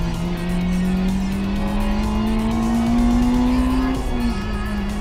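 Honda Integra DC5's four-cylinder engine, heard from inside the car, rising steadily through the revs as the car accelerates. About four seconds in, an upshift drops the revs, and the engine then holds at a steady pitch.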